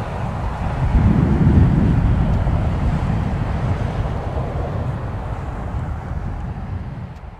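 Airliner engines rumbling as an aircraft passes on the runway. The rumble swells about a second in and fades away slowly, with wind on the microphone.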